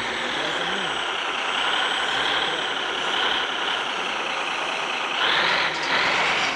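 Radio-controlled scale trucks and construction machines running, with a steady wavering whine from their electric drives and gears. Two short hissing bursts come near the end.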